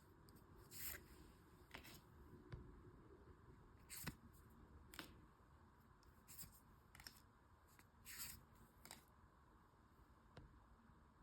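Near silence broken by about ten faint, brief swishes and taps of packaging and cards being handled by hand.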